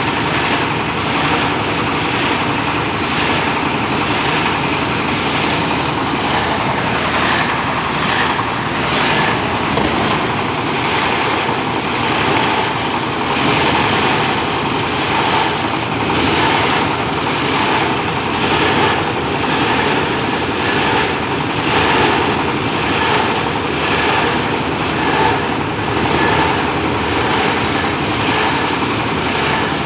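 Plastic shredder machine running steadily, with a regular pulsing in its noise.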